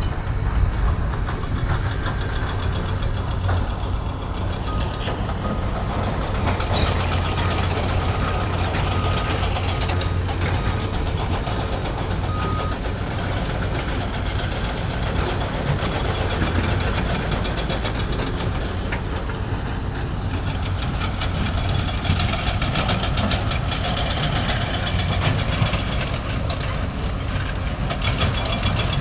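Excavator diesel engine running steadily under work, a continuous low drone. A row of short, evenly spaced beeps sounds for several seconds about a quarter of the way in.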